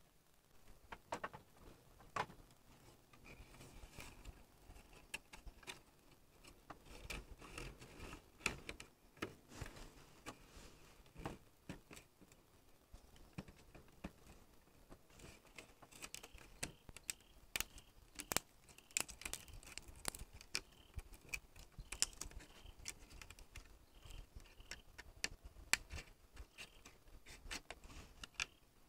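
Irregular light clicks and taps of hand work, some a few in quick succession and others spaced out, with a faint steady high tone underneath from about three seconds in.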